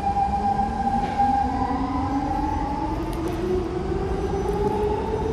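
SMRT C651 metro train's traction motors and inverter whining over the rumble of the running train, the whine rising steadily in pitch as the train accelerates.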